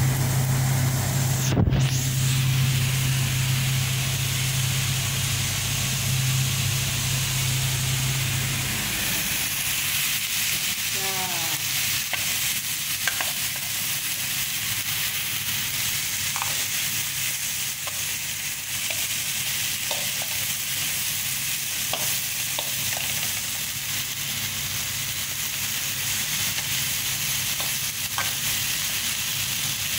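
Okra, bitter gourd and potato pieces sizzling as they are stir-fried in an aluminium pan, with a spatula clicking and scraping against the pan now and then. A steady low hum runs under it for the first nine seconds or so, then stops.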